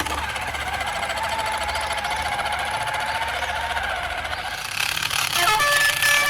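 Rapid steady mechanical rattle from a radio-controlled construction model's motor or sound unit, over a low hum. About five seconds in, a series of stepped horn-like tones begins.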